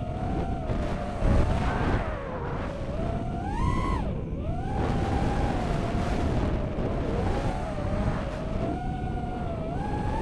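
Racing quadcopter's four Racerstar BR2306S 2700 kV brushless motors spinning DAL 5045 three-blade props, heard from on board. Their whine rises and falls with the throttle: it climbs sharply just before four seconds in, drops as the throttle is chopped, then climbs again near the end. A rumble of wind and prop wash runs underneath.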